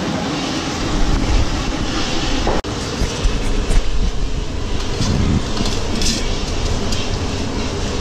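Steady loud rumbling roar of kitchen background noise, broken for an instant about two and a half seconds in, with a few faint clicks later on.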